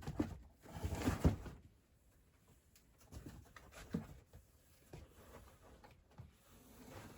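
A kitten playing in cardboard: irregular soft thumps and scuffles of paws on cardboard, the loudest cluster about a second in, then scattered lighter knocks.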